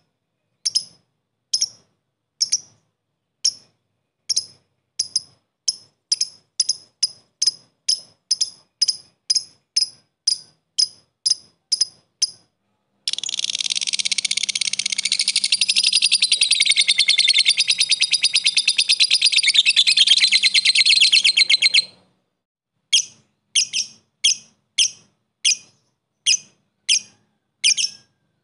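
Lovebird giving a run of sharp, separate chirps, the ticking call fanciers call 'ngetik', quickening to about three a second. About halfway through it breaks into a long, rapid, loud chattering trill ('ngekek') lasting around nine seconds. It then goes back to single chirps.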